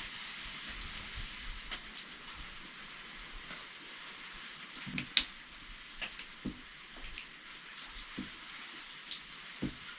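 Small clicks and scrapes of hands and a small metal tool working a carbon brush into an angle grinder's brush holder, with one sharp click about five seconds in, over a steady faint hiss.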